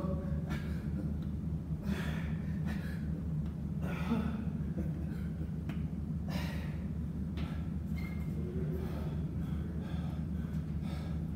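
A man breathing hard as he does sit-ups, with a sharp gasping exhale every second or two, over a steady low hum.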